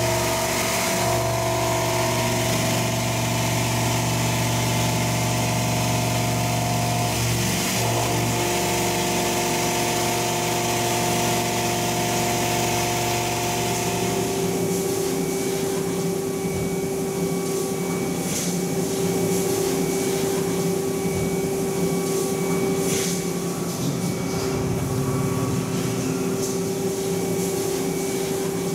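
Okuma MU-6300V 5-axis vertical machining center milling a KPM30 steel mold: first a slow-spindle roughing cut at about 1,500 rpm, a steady hum with several ringing tones. About halfway through, the sound changes to a high-speed finishing cut at 15,000 rpm with a different steady tone and a few brief high-pitched spikes.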